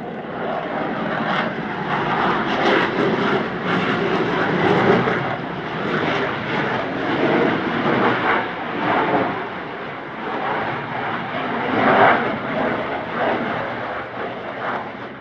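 HAL Tejas fighter jet's single GE F404 turbofan engine as the jet flies past in display manoeuvres: a loud jet roar that swells over the first couple of seconds and stays loud, with uneven, crackling surges.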